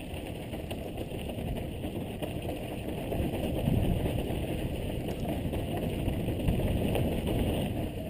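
Wind rushing over a helmet-mounted camera's microphone while a mountain bike rolls down a dirt trail, with tyres crunching and rattling over the dirt. It gets somewhat louder about halfway through.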